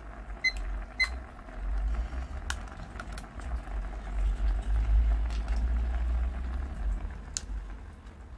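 Two short high beeps from a digital kitchen timer as its buttons are pressed, about half a second apart, over the low steady bubbling of instant noodles boiling in an electric pot. A few light clicks follow.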